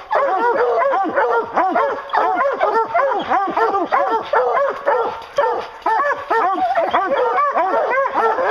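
Several hounds barking and baying without a break at a black bear treed above them, many barks overlapping. This is the tree bark hounds keep up while the bear stays treed.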